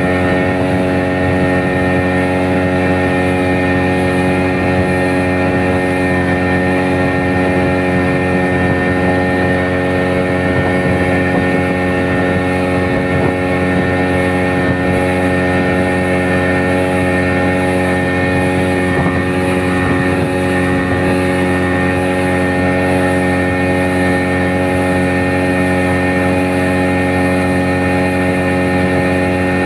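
Boat engine running at a steady, unchanging speed.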